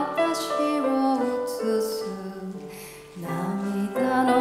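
A woman singing a slow, gentle song live with piano accompaniment; the music softens to a brief lull about three seconds in, then comes back up.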